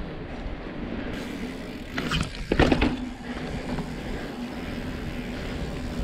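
Mountain bike rolling over paving, with a burst of clattering impacts from the bike about two and a half seconds in as it drops onto the road, then a steady hum as it rolls on over asphalt on knobby tyres.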